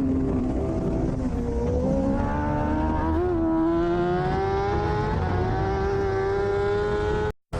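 Racing motorcycle engine heard on board at speed: the revs dip about a second in, then climb steadily for about five seconds as the bike pulls hard. The sound cuts out completely for a moment just before the end.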